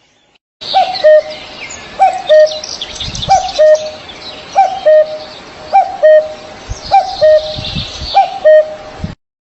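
Common cuckoo calling its two-note "cuck-oo" seven times, about once every second or so, with smaller birds chirping higher behind it. The sound starts and stops abruptly.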